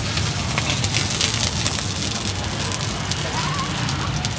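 Oil sizzling and crackling in a wok as a bánh xèo, a crisp Vietnamese rice-flour pancake, fries, with a steady patter of fine pops.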